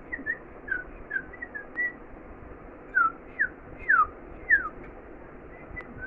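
Caged rosy-faced (peach-faced) lovebirds chirping: a run of short, high chirps, most falling in pitch. The loudest few come a little past the middle.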